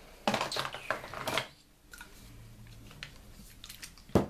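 Craft supplies being handled on a wooden tabletop: a quick run of rustles and clicks in the first second and a half, a few faint ticks, then one sharp click near the end.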